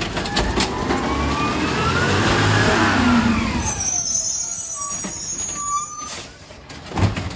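Garbage truck engine revving up and dropping back down over a few seconds. A short knock comes near the end.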